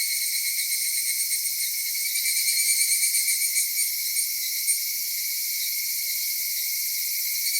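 Chorus of cicadas singing, a dense, high-pitched, steady buzz, with a slight pulsing between about two and five seconds in.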